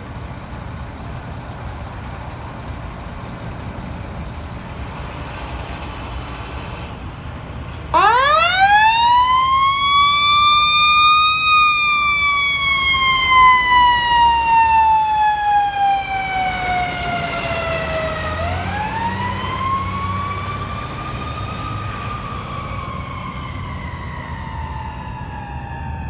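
Fire truck siren. It starts about eight seconds in, sweeps quickly up in pitch, glides slowly down, then rises and falls once more, over the low rumble of the truck and traffic.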